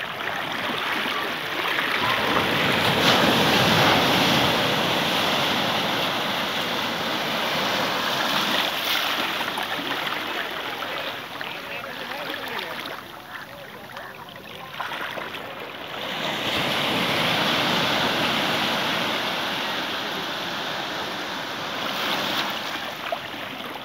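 Small sea waves washing in over rocks in shallow water: a steady rushing hiss that swells twice, once about two seconds in and again past the middle.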